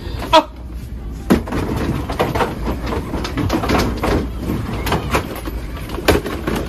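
Hard-shell suitcases knocking and rattling against each other and the shelf as they are pulled down, with a few sharp bangs and a steady clatter of handling between them.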